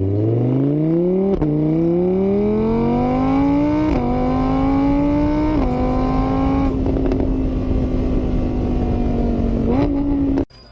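A vehicle engine accelerating, its pitch climbing and dipping a little at each of three gear changes, then holding a steady pitch before a last brief rise and a sudden cut-off near the end.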